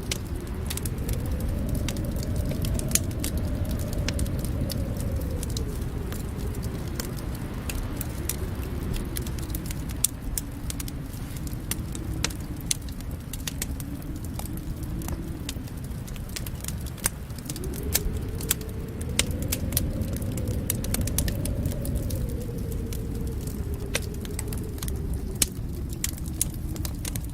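Fireplace wood fire crackling, with frequent sharp pops and snaps over a low rushing sound that slowly swells and fades.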